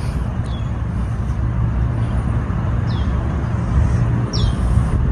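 Steady low outdoor rumble, like distant road traffic, with a few short falling bird chirps over it.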